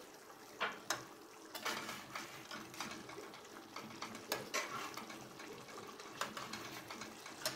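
A metal spatula scraping and clinking against a kadai as fish pieces are turned in thick gravy, in a run of irregular short clicks and scrapes. Under them the gravy simmers faintly on a low flame.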